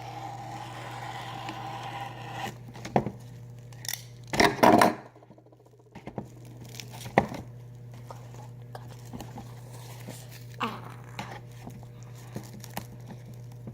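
Plastic wrap crinkling and adhesive tape being pulled and torn, loudest in a burst about four seconds in, with a few sharp light taps scattered through.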